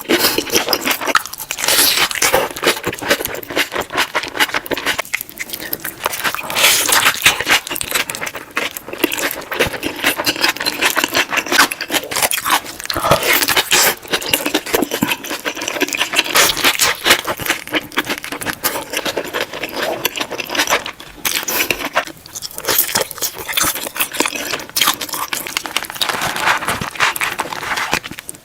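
Close-miked eating sounds of someone biting into and chewing a saucy burger: a dense, continuous run of crackly mouth and chewing noises, with brief lulls between bites.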